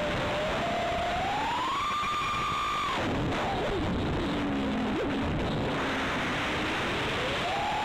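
The four brushless motors and props of a 5-inch FPV quadcopter whine under throttle, with steady wind rush. The whine climbs to a high pitch, cuts off abruptly about three seconds in, and wavers low while the quad points nose-down in a dive. Near the end it climbs again as throttle comes back on.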